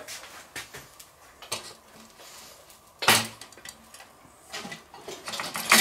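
Wire grill basket of stainless steel clattering as it is handled and its hinged grate opened: small clicks and knocks, a sharp metal clank about three seconds in, then a longer metallic rattle near the end.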